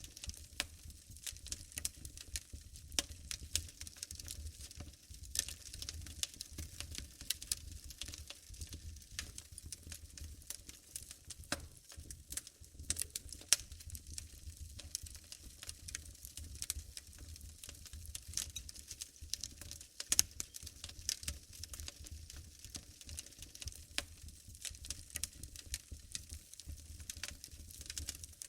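Wood fire burning in a fireplace, crackling steadily with many small pops and a few sharper, louder ones over a low rumble.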